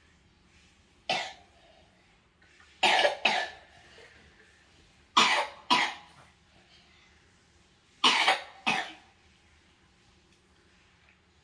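A sick person coughing: one sharp cough, then three quick pairs of coughs a few seconds apart.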